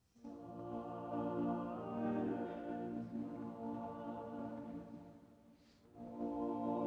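Choral music with sustained chords begins abruptly, dips about five seconds in, then swells again near the end.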